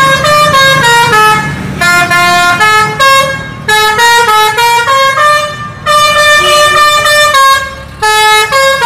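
Tour coach's multi-trumpet musical air horn (a 'telolet' horn) playing a quick melody of short, stepping notes in several phrases with brief breaks, over a low rumble.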